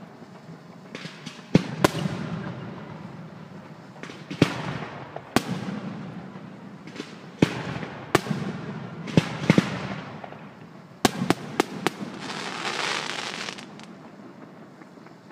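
Aerial fireworks shells bursting in a string of sharp bangs, each trailing off in an echo. About twelve seconds in comes a dense, fizzing crackle from a burst of crackling stars.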